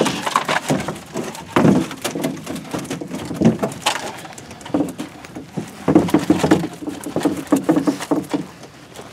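Hoop net being hauled aboard a boat with fish inside: irregular knocks and patters as the net's hoops hit the boat floor, fish flop in the mesh and water runs off the netting.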